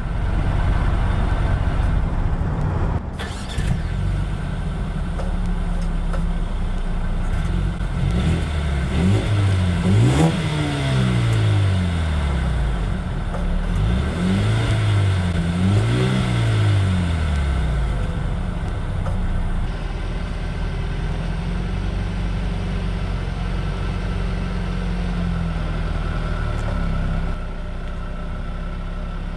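2020 Mercedes-AMG CLA 35's turbocharged 2.0-litre inline-four exhaust idling, revved up and back down about three times in the middle, then settling back to a steady idle.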